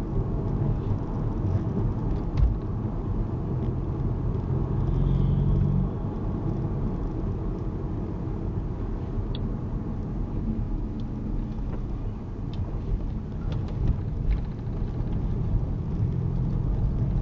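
Car engine and road noise heard from inside the cabin while driving. The engine note drops about six seconds in and rises again near the end.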